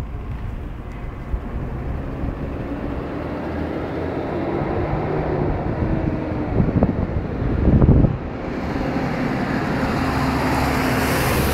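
Car on the move: a steady engine and road rumble, with a gust of wind hitting the phone microphone about eight seconds in and the noise growing toward the end.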